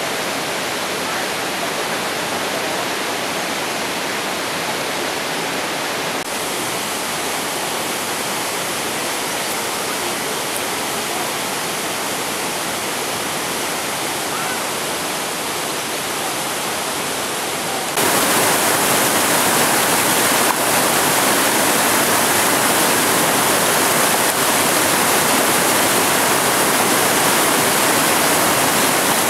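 Rushing water of a mountain waterfall cascading over boulders: a steady, even roar that jumps abruptly louder about two-thirds of the way through.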